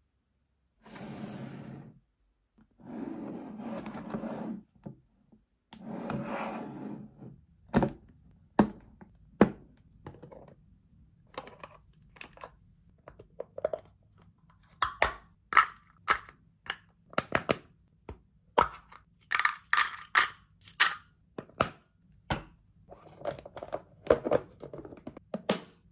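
A few seconds of rustling and scraping, then many sharp clicks, knocks and snaps of a hard plastic Zak! lunch box being handled: its tray, small lidded container and latching lid knock and click together.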